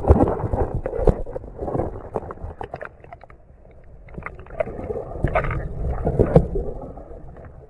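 Water splashing and gurgling around a camera as it goes under the river surface, then muffled underwater noise with scattered knocks and clicks as the diver moves through the water.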